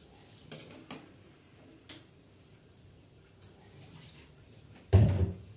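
A few light clicks of a metal fork stirring food in an aluminium wok, then one loud dull thump near the end.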